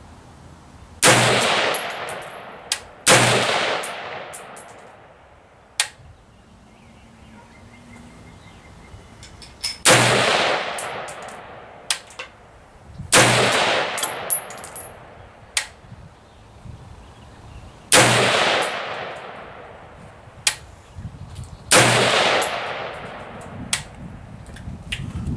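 DPMS Oracle AR-15 semi-automatic rifle firing .223/5.56 reloads: six single shots a few seconds apart, the first two about two seconds apart, each with a long echoing tail. Smaller sharp clicks and pops fall between the shots.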